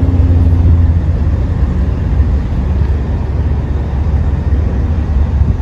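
Motor vehicle running, a steady low rumble.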